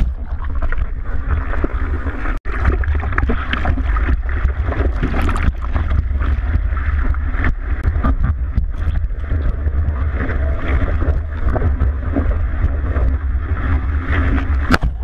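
Water rushing and splashing over a GoPro's waterproof housing mounted on a surfboard moving through whitewater and along a breaking wave, with a heavy low rumble of water buffeting the housing and many small splash clicks. The sound drops out for an instant about two seconds in.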